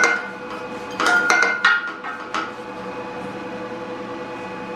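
Steel parts knocking and clinking together as a heavy steel cylinder is fitted by hand into the slip roller's frame: one knock at the start, a cluster of ringing clinks about a second in, and another clink near two and a half seconds, then only a faint steady hum.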